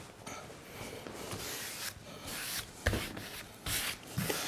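A hand rubbing and smoothing a sheet of sapele mahogany veneer flat onto a glued panel, a soft dry swishing that comes and goes, with a light knock about three seconds in.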